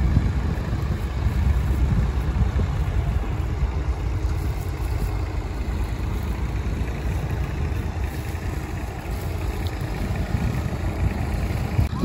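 Tractor engines running with a steady low rumble as they plough the field.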